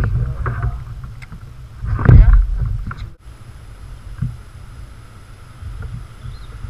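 Wind buffeting the camera microphone on a kayak, a steady low rumble, with a brief louder sound about two seconds in and a short dropout just after three seconds.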